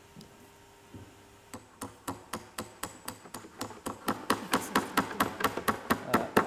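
A rapid, even run of sharp knocks, about four a second. It starts about a second and a half in and grows steadily louder, each knock ringing briefly.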